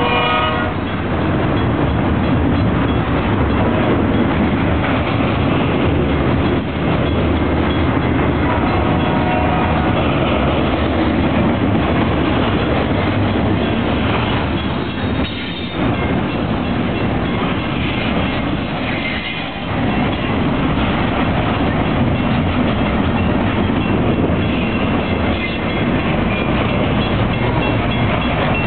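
Double-stack container well cars of a freight train rolling past close by, a loud steady rumble and clatter of steel wheels on the rails. A short pitched tone sounds at the very start.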